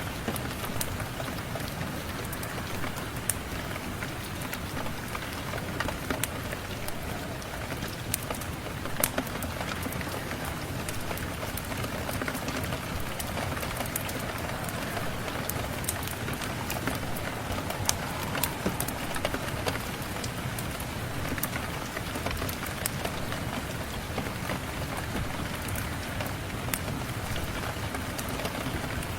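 Steady rain with a wood fire crackling: an even hiss of rain dotted with scattered sharp pops.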